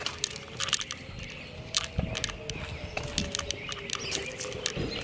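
Footsteps and a dog's claws ticking and scuffing on a concrete sidewalk as the dog is walked on a leash, in irregular light clicks, with a faint steady hum behind.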